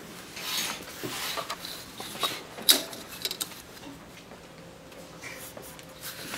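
A spiral-bound paper sketchbook slid and turned on a desk and a plastic ruler moved, with a few sharp clicks and knocks, the loudest about two and a half seconds in, then light pencil strokes along the ruler.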